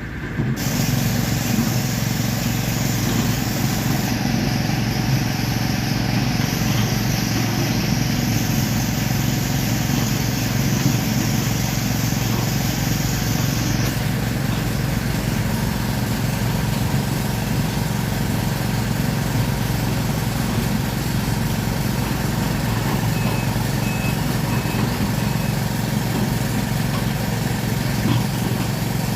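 Sumitomo SH210-5 excavator's diesel engine running steadily. Four short high beeps sound about two-thirds of the way through.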